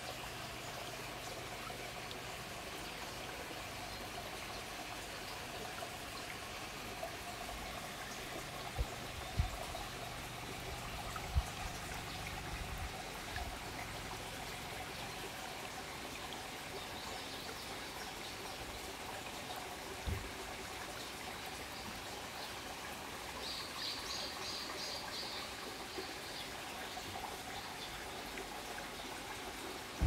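Steady trickling, running water, with a few soft low thumps and, about three-quarters of the way in, a brief run of high chirps.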